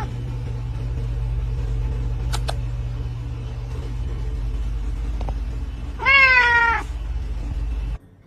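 A domestic cat meowing over a steady low hum: the end of one meow right at the start, and a long, drawn-out meow about six seconds in. The sound cuts off abruptly near the end.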